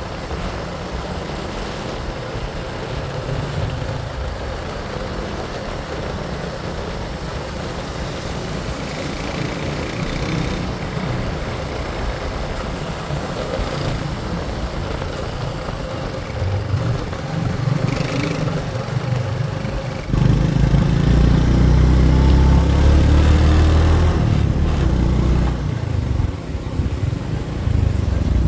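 A motor vehicle running, with steady low rumble and road noise that gets markedly louder about two-thirds of the way through.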